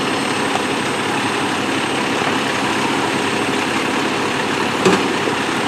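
Fire engine's diesel running steadily, with a brief knock about five seconds in.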